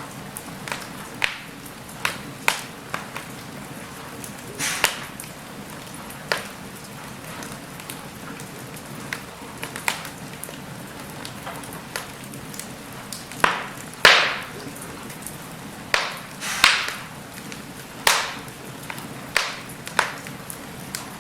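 Logs burning in a fireplace: a steady low hiss with irregular sharp crackles and pops every second or two, the loudest pop about fourteen seconds in.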